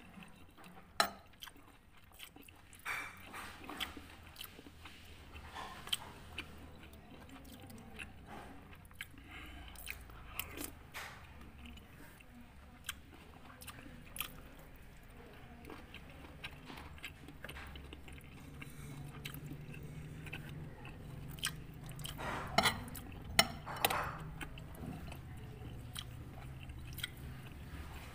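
Close-miked eating sounds of a man chewing satay and soto: wet chewing and biting with occasional sharp clicks and smacks, the loudest a little before the end.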